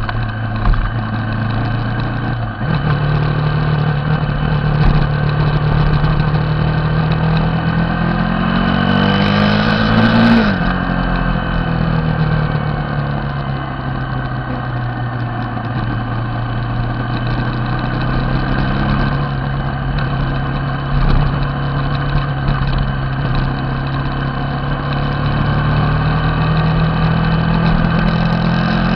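Motorcycle engine running steadily while riding, heard from on the bike. About eight seconds in the revs climb, then fall away sharply about ten seconds in, and they rise again more gently later on.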